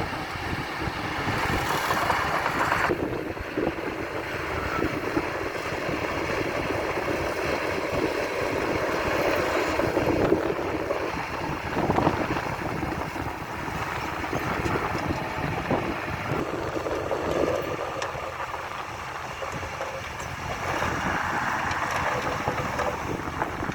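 Diesel engines of a dump truck and a bulldozer running, a continuous rumble with wind buffeting the microphone and a couple of sharp knocks about halfway through.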